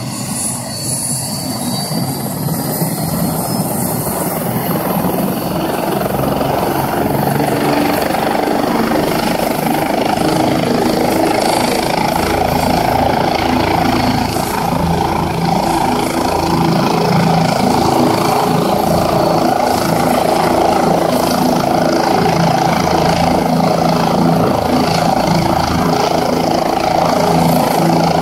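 Turbine helicopter running on the ground with its rotor turning. A high whine rises in pitch over the first few seconds, and the whole sound grows louder over about ten seconds as the engine and rotor spool up, then holds steady.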